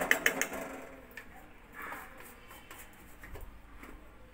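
A metal spoon tapping sharply several times in quick succession as milk powder is shaken off it into the pan, then a few fainter clicks and a short scrape of kitchen utensils about two seconds in.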